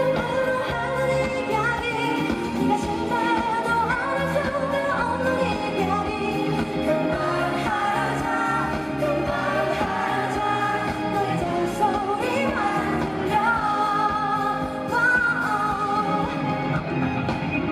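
Live pop song: singing over band accompaniment, heard through a concert hall's sound system.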